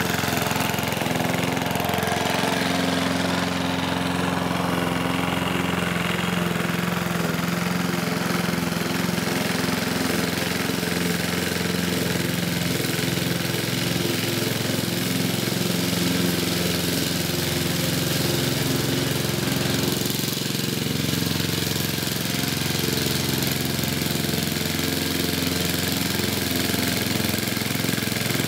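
Vintage Goodall rotary lawn mower's 3-horsepower Briggs & Stratton four-stroke engine running steadily while the mower cuts grass.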